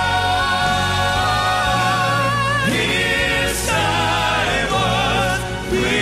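Male gospel vocal group singing in close harmony, holding long chords and sliding up into a new chord about every three seconds.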